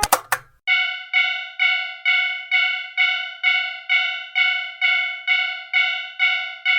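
Railroad crossing warning bell ringing over and over, about two strikes a second, each tone dying away, after a short sharp crash right at the start.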